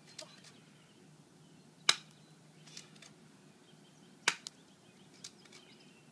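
Two sharp snaps of a 230 FPS airsoft pistol firing, about two and a half seconds apart, each followed about a second later by a fainter click; the cans are missed.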